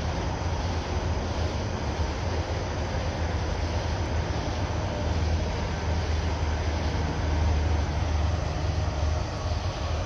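Diesel locomotives at the head of an approaching loaded coal train, a steady low engine rumble that swells a little toward the end.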